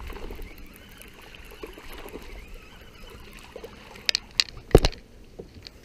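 A baitcasting reel being cranked steadily to bring in a hooked fish. About four to five seconds in come a few sharp splashes and knocks, the loudest near the end, as the fish thrashes at the surface.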